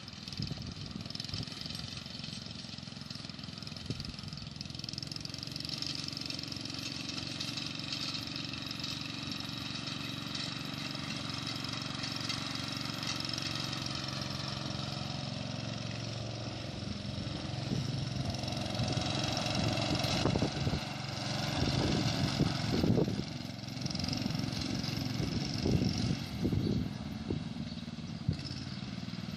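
1964 Jacobsen Chief garden tractor's engine running steadily as it drives with a load of hay bales, growing louder in the second half as it comes closer. A few louder low bumps sound in the last several seconds.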